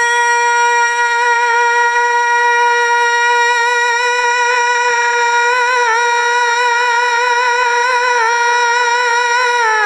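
A boy's voice holding one long sustained note of a naat through a microphone, nearly steady in pitch with slight wavering near the end.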